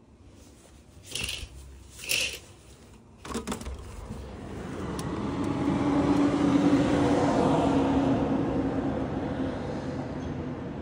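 Two short swishes and a click as the curtain and window are opened, then street traffic from below comes in. A passing vehicle with a low engine hum swells up, peaks, and slowly fades.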